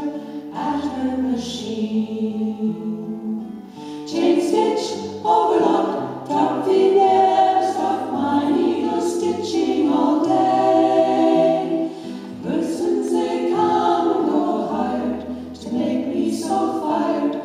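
A women's vocal group of six singing a song together in harmony, several voices holding different notes at once.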